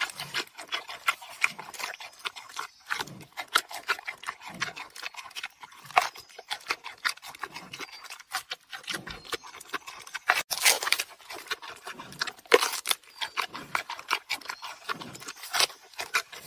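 Giant panda chewing a bamboo shoot: a fast, irregular run of crunches, some louder than others.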